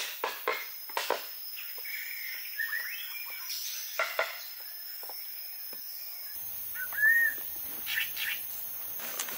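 Forest birds calling in short whistled glides, the loudest a single curved call about seven seconds in, over a steady high insect drone. A few sharp knocks come in the first second and again about four seconds in.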